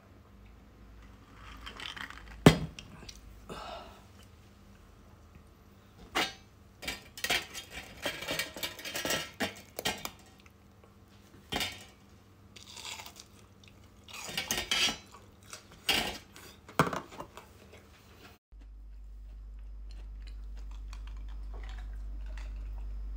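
Scattered clinks and knocks of kitchenware being handled, glass and stainless steel, coming in clusters with one sharp knock about two seconds in. After a sudden cut near the end, a low steady hum that slowly grows louder.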